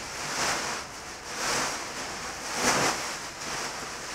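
Large black plastic trash bags rustling and crinkling as bedding is pushed into them, in a few swells, the loudest near the end.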